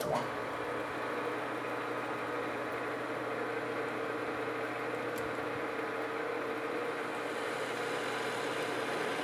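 Metal lathe running steadily under power, a constant hum with several steady tones, as a toolbit chamfers the corner of a hot-rolled steel bar.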